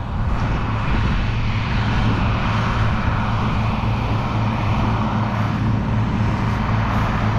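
International 986 tractor's diesel engine running steadily under load with a low, even drone, pulling a Gehl 2412 mower-conditioner cutting hay.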